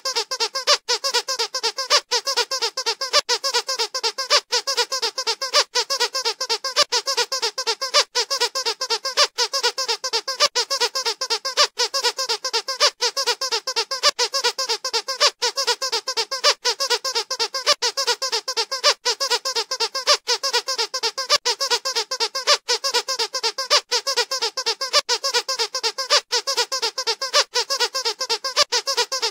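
Squeaker in a squeaky dog toy squeezed over and over, a rapid, steady string of high squeaks several times a second.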